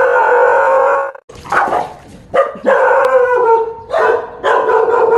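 A dog howling and barking: long held howls broken by a few short barks.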